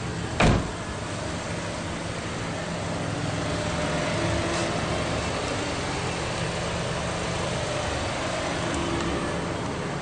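A car door shutting once, a short loud thump about half a second in, over a steady low hum.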